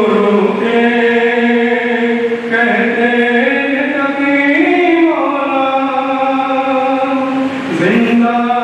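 Noha, a Shia mourning lament, chanted without instruments in long held notes that step up and down in pitch.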